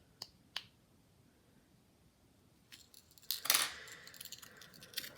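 Small metal tools and parts clicking and clinking on a work surface: two sharp clicks near the start, then a run of clicks with a louder scraping clatter about three and a half seconds in.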